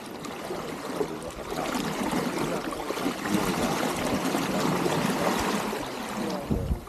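Water rushing and splashing along the hull of a small SCAMP sailboat under sail, a busy wash that rises and falls in loudness, with a brief louder bump near the end.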